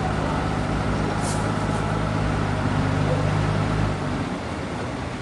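A heavy engine running steadily at a constant speed, easing off about four seconds in, with a brief hiss just over a second in.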